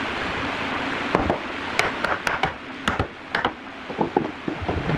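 Wood knocking on wood: a run of about a dozen sharp, irregular knocks starting about a second in, as the dry-fitted log joints of a door panel are tapped together. Some knocks ring briefly; a steady hiss lies underneath.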